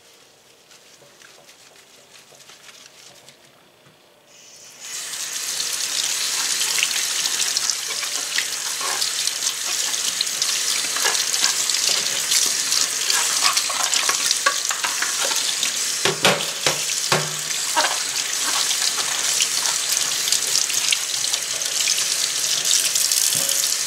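Kitchen tap turned on about five seconds in, water running steadily and splashing into a stainless steel sink as metal tuna cans are rinsed under it, with a few sharp knocks as the cans are handled. Before the tap comes on there is only faint rubbing from a paper towel wiping a can.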